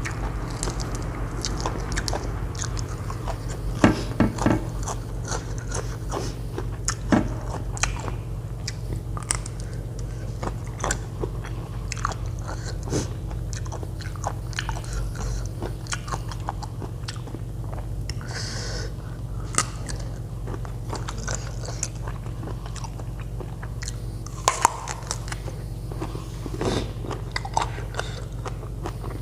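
A person chewing and biting food close to the microphone: irregular crunches and wet mouth clicks, loudest about four seconds in and again near the end, over a steady low hum.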